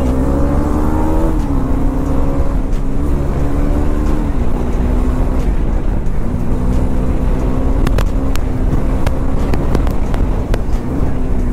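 Motorcycle engine pulling hard under the rider, its pitch rising and then dropping back twice in the first few seconds as he shifts up, then holding a steady note at cruising speed. Heavy wind rushes on the helmet-mounted microphone throughout.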